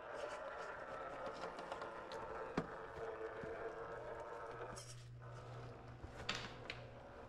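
Redcat Ascent RC rock crawler's Hobbywing SE 1800kv brushless motor and gear drivetrain whining at low crawling speed while its tires and chassis knock against rock. A sharp knock comes about two and a half seconds in. The whine cuts out briefly near five seconds in, then picks up again.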